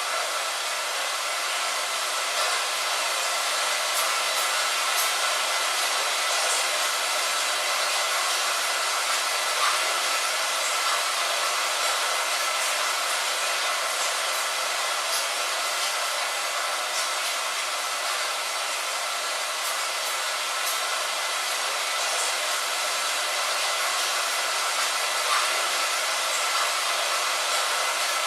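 Steady rain hiss with faint, scattered ticks of single drops striking, the sound of rain on a window, thin and without any low rumble.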